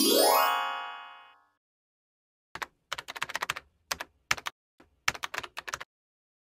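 A rising chime sound effect that fades out over about a second and a half, then after a short pause a run of quick keyboard-typing clicks used as a sound effect while caption text appears.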